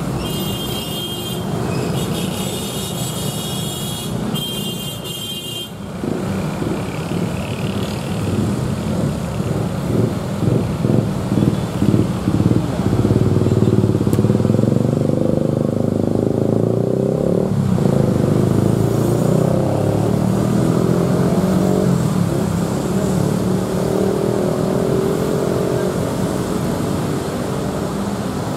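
Electric commuter train approaching along the tracks, its running hum rising slowly in pitch over the second half. Three short high-pitched bursts come in the first six seconds, and a rhythmic pulsing runs from about ten to thirteen seconds in.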